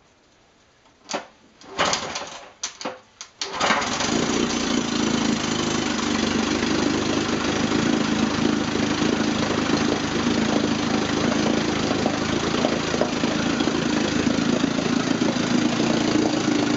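1958 Evinrude Fastwin 18 HP two-cylinder two-stroke outboard, its lower unit in a tub of water, being started: it fires in a few short bursts, catches about three and a half seconds in, and settles into a steady, smooth idle.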